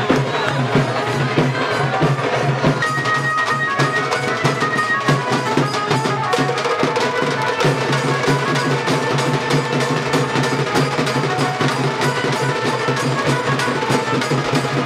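Music with fast, dense percussion over a steady low drone, with a few short high held notes about three to five seconds in.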